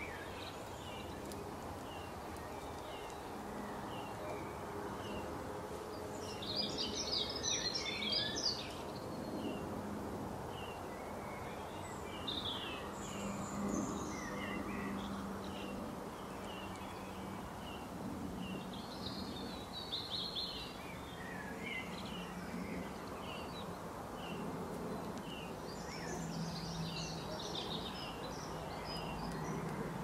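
Garden birdsong: a steady run of short chirps repeated about three times every two seconds, with a fuller, louder song phrase about every six or seven seconds, over a steady low hum of background noise.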